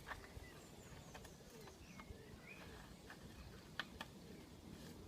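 Near silence, with a few faint clicks as the left-hand Shimano Hollowtech II external bottom bracket cup is threaded into the frame by hand, and faint bird chirps in the background.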